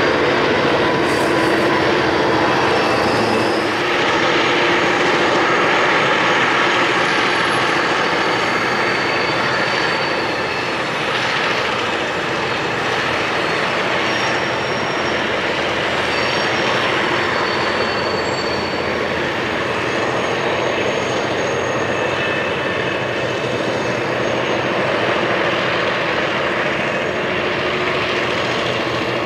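Two EMD GP15-1 diesel locomotives, each powered by a twelve-cylinder EMD 645 engine, working hard under load as they pull a string of coke hoppers, their engines droning steadily.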